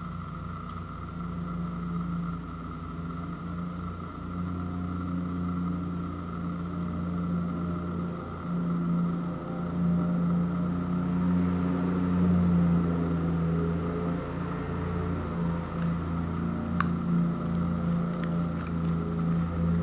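A motor running steadily with a low drone that swells and fades slowly, with a few faint clicks near the end.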